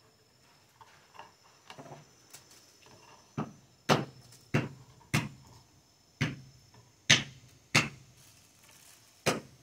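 Chopping: about eight hard, sharp blows at an uneven pace, one every half second to a second, after a few lighter taps.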